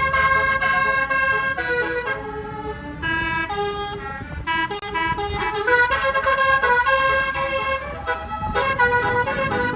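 Basuri telolet bus horn playing a tune: a run of loud held horn notes that step from pitch to pitch every half second or so.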